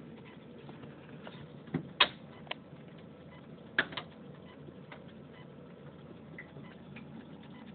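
A few sharp clicks and taps, the loudest about two seconds in and again near four seconds, over a low steady hum.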